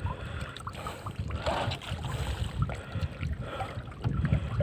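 Water lapping and splashing against a wooden boat's hull and a full, half-submerged fishing net bag, with a few short splashes, over a steady low rumble of wind on the microphone.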